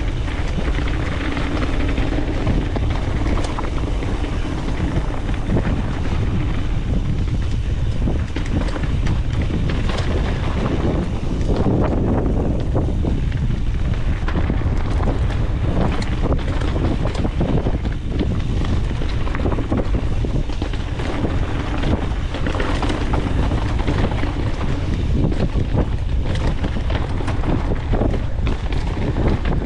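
Wind buffeting the helmet- or chest-mounted camera's microphone on a fast mountain-bike descent, over the tyres rolling on the rough trail and a constant patter of knocks and rattles from the bike over bumps.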